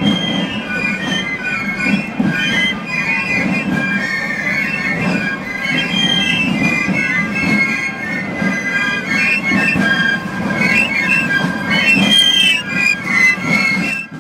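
A Basel carnival fife-and-drum band playing a march: many piccolos play a shrill melody in unison over the rapid rolls and strokes of large rope-tensioned side drums.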